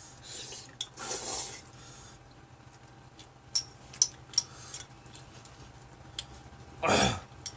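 Slurping of Chapagetti noodles: a couple of hissy slurps in the first second or two and another near the end. In between come sharp clicks of chopsticks against bowls.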